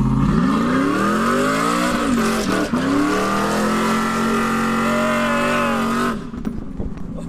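Cammed 4.8-litre V8 pickup engine accelerating hard at full throttle, heard from inside the cab: the pitch climbs steeply, drops briefly twice around two to three seconds in as it shifts gears, then holds high and winds down as the driver lets off near the end.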